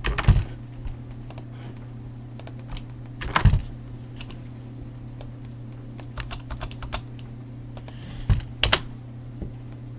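Typing on a computer keyboard: scattered key presses, with a few louder key strikes about three and a half seconds in and twice near the end.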